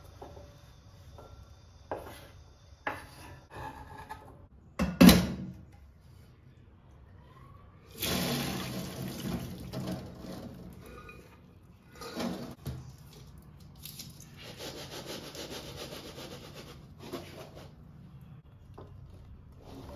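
A knife scraping chopped cucumber off a wooden chopping board into a bowl, a few knocks and one sharp knock about five seconds in. Then water and boiled chickpeas are poured from a pot through a mesh strainer into a stainless steel sink, a rushing splash that comes again in shorter spells.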